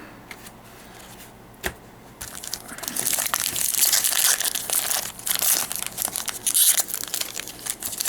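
A card booster pack's foil wrapper being crinkled and torn open, a dense crackly rustle that starts about two seconds in, after one faint click.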